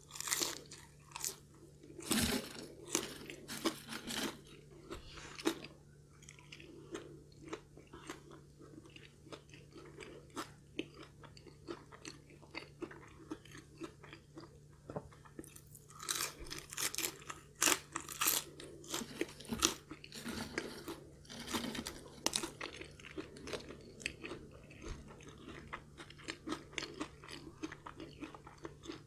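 Crunching and chewing of crispy Spicy Mala fried chicken coating, in loud clusters of crunchy bites near the start and again a little past halfway, with softer chewing in between.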